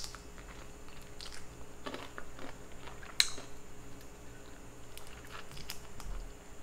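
A person biting and chewing garlic buttered shrimp: a scatter of short crunches and mouth clicks, the sharpest snap about three seconds in.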